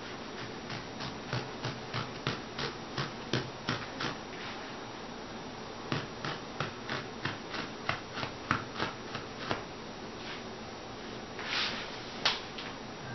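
Hand blade shaving upholstery foam padding in quick, short strokes, about three a second, in two runs with a short pause between. Near the end come a longer rustle of the foam being handled and one sharp click.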